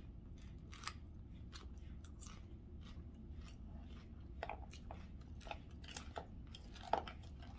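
A person chewing a mouthful of chicken salad close to the microphone, a run of irregular wet clicks and crunches, over a steady low hum.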